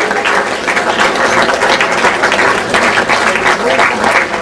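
Audience applauding: the dense, steady clapping of many hands.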